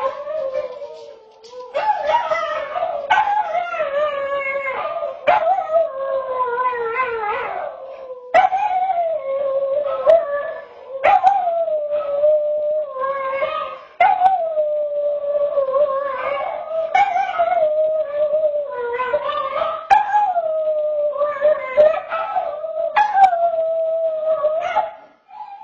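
Small white dog howling: a string of long drawn-out howls, each jumping up in pitch at its start and then sliding slowly down, one every two to three seconds. Picked up by a home security camera's microphone, which dulls the upper end of the sound.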